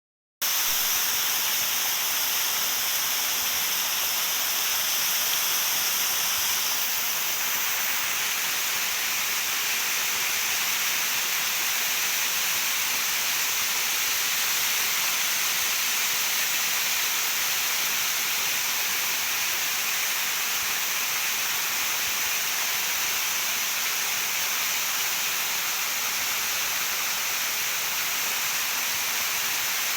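Waterfall: a steady rush of falling water, its tone shifting slightly about six or seven seconds in.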